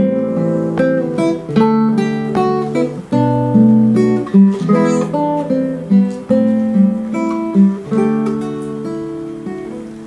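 Nylon-string classical guitar playing an instrumental break on its own: strummed chords about once a second with picked notes between them, getting quieter near the end.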